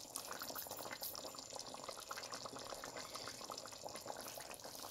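Pot of beef and potato curry simmering, giving a faint steady run of small bubbling pops and clicks.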